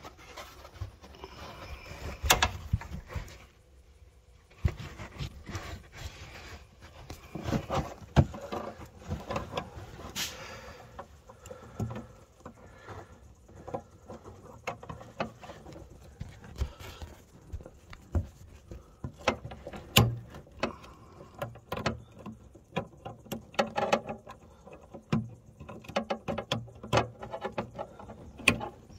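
Hands working in a car boot: the felt carpet lining rustles and scrapes as it is held back, with irregular sharp clicks and knocks from plastic wiring-harness plugs being pushed back onto the park assist module.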